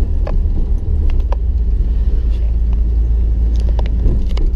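Car driving along a street, heard from inside the cabin: a steady low engine and road rumble, with a few light clicks and rattles scattered through it.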